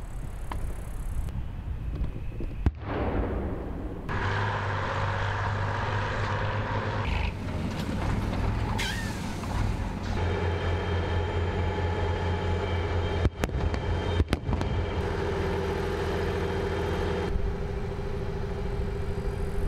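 Heavy military engines running with a steady low hum, in short pieces that change abruptly every few seconds. Two sharp cracks come about two-thirds of the way through.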